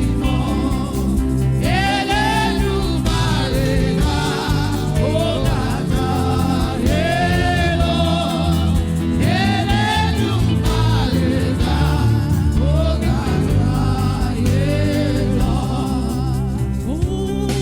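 Gospel music: singing with a choir-like vocal line over a steady instrumental backing, phrases rising and falling every second or two.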